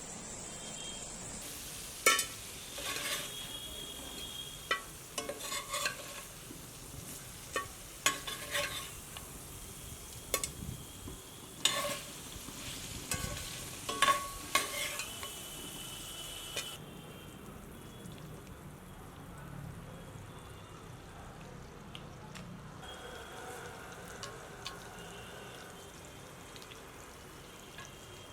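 Food frying in a pan with a steady sizzle while it is stirred, a utensil knocking and scraping against the pan every second or so. About halfway through the knocks stop and only the quieter sizzle goes on.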